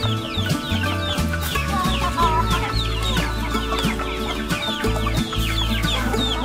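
Chickens clucking, over background music with a low bass line that moves in held steps.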